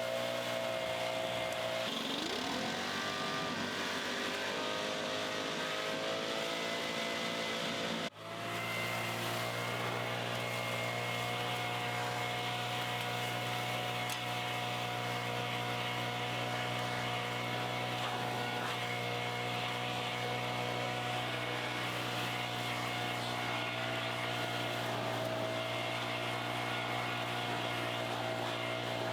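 A steady motor or engine drone holding an even pitch, with a sudden brief dropout about eight seconds in before it carries on unchanged.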